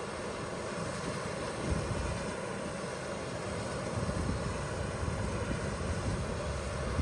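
Steady noise of a jet airliner's engines running, with an uneven low rumble underneath.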